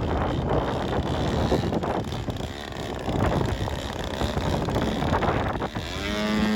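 Wind buffeting the microphone in uneven gusts. Near the end a small engine comes in, its pitch gliding down and then holding low.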